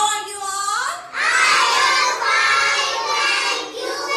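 A class of young children chanting in unison in a sing-song voice, answering the teacher's greeting, with a short break about a second in.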